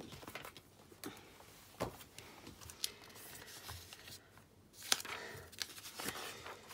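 Sheets of patterned paper being handled and put away: scattered light taps and paper rustles, the sharpest tap about five seconds in.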